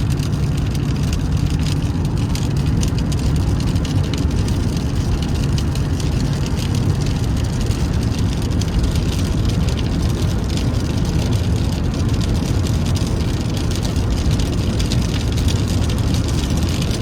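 Steady road and engine rumble of a car being driven, heard from inside the cabin.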